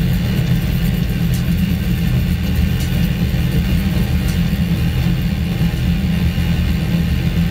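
Live-coded electronic music played through a PA: a steady, dense low drone heavy in the bass, with a few faint clicks.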